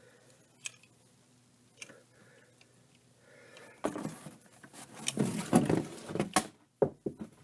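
Plastic clicks and clatter of a Transformers Combiner Wars Vortex figure being handled, with a few light clicks at first, then a busier run of rattling and sharp clicks over the last few seconds.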